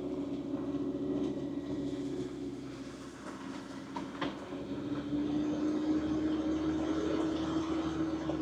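First-generation Mitsubishi Pajero running on the road, a steady engine drone with road rumble. The engine note eases off about a third of the way in, with a couple of sharp clicks, then picks up again and holds louder from about halfway.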